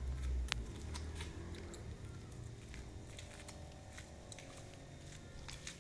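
Footsteps in rubber flip-flops on a wet paved lane: faint, irregular clicks and taps.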